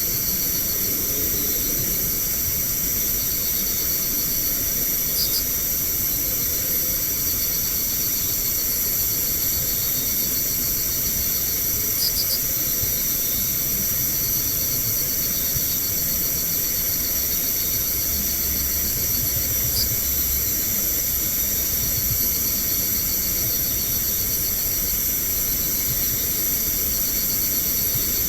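Night insect chorus: crickets trilling steadily in several high-pitched layers, with a short chirp every several seconds.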